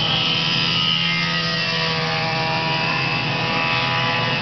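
Racing go-kart engines running at speed, their pitch drifting slowly down and then up.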